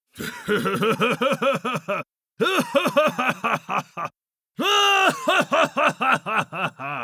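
A person performing a loud, theatrical villain's laugh, 'wa-ha-ha'. It comes in three runs of quick, even ha-ha pulses, about eight a second, with short breaks between, and the third run opens on a held note.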